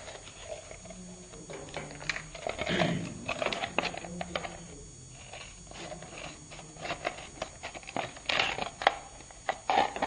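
Scattered light clicks and rustles of objects being handled, with faint voices murmuring in a small room.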